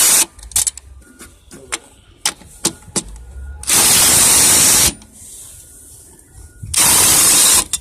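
DeWalt DCF787 cordless 1/4-inch impact driver hammering on a shock bolt in loud bursts of about a second each. One burst ends just at the start, and two more come about four and seven seconds in, with small clicks and knocks between them. The bolt is being loosened and backed out.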